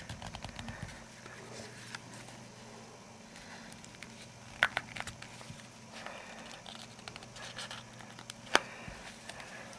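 Small plastic clicks and crackles as the Nokia 7373's plastic case is prised apart by fingernail and tweezers, with two sharper snaps about halfway through and near the end.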